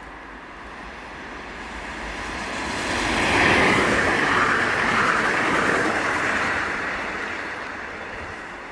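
Bombardier Talent 2 electric multiple unit passing at speed: a steady rush of wheel and rail noise that swells as it approaches, is loudest for about three seconds from a little after three seconds in, and fades as the train moves away.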